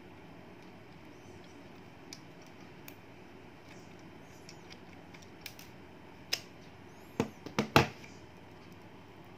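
Small sharp clicks and taps from a wire and crimp terminal being handled by hand: a few faint ones, then a quick cluster of four or five louder clicks near the end.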